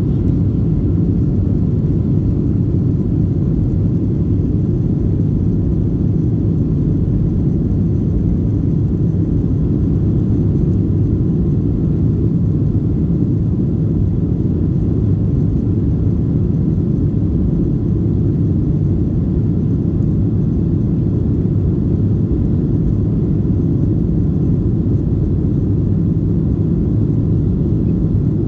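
Steady low cabin rumble inside a Boeing 737-600 airliner, the even drone of its engines and airflow with no change in level.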